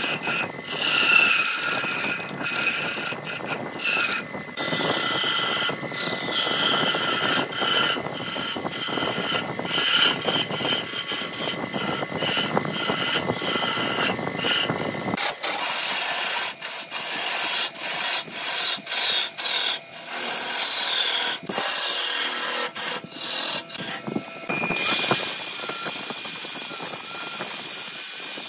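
Wood lathe spinning a wooden spindle while a hand chisel cuts it: a rough scraping hiss over the lathe's steady hum, broken by many short gaps as the tool lifts off the wood. A few seconds before the end a steady high whine comes in as an angle grinder with a sanding disc is put to the spinning wood.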